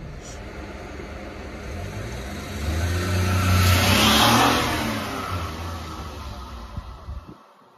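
Suzuki Carry kei mini truck driving past, its small three-cylinder engine and tyres rising to their loudest about four seconds in, then fading away. The sound cuts off shortly before the end.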